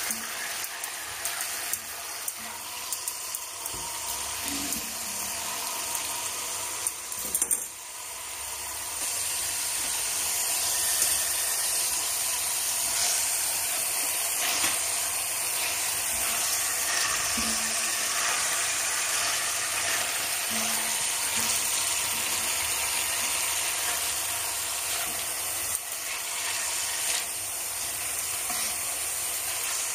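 Two whole chickens sizzling as they brown in oil in an enamelled cast-iron pot, with a silicone spatula now and then knocking and scraping as they are turned. The sizzling grows louder about nine seconds in.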